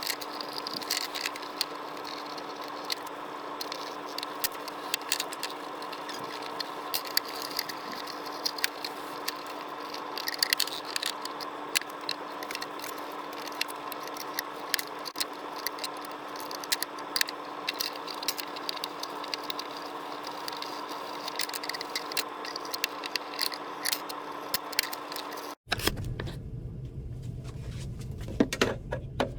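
Small scraping, clicking and rattling sounds of hand work over a steady hum. Near the end the sound cuts off abruptly and gives way to a low rumble with more clicks.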